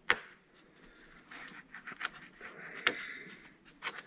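Small screws and a metal bracket being handled on a workbench while they are checked with a magnet. A sharp metallic click with a short ring comes right at the start, then a few lighter clicks and soft scraping as the parts are picked up and moved.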